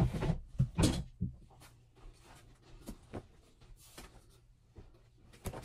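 Clothes and plastic hangers being handled: rustling with scattered light clicks and knocks, busiest in the first second.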